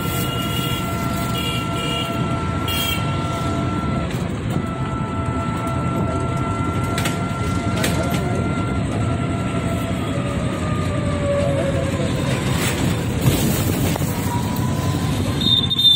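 Auto-rickshaw ride heard from inside the cab: steady engine and road rumble with a high whine. The whine holds level, then slides down in pitch about two-thirds of the way through as the vehicle slows. A few short high beeps sound within the first three seconds.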